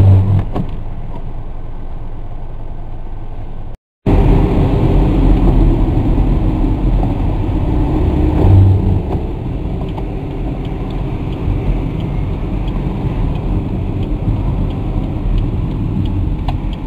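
Car cabin noise from a moving car: a steady low rumble of engine and road. About four seconds in the sound cuts out completely for a moment, then comes back louder.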